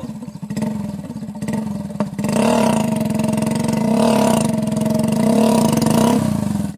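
Small single-cylinder commuter motorcycle engine pulling a loaded trailer, running steadily under load. After a sharp click about two seconds in it gets louder, and its speed rises and falls every second or so as the throttle is worked.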